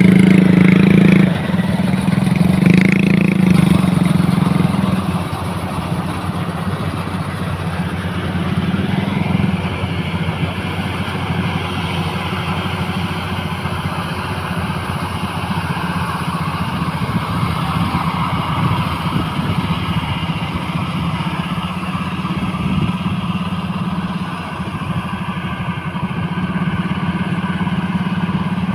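Motorcycle engine running: a steady hum for the first few seconds, then rougher and noisier as it goes on.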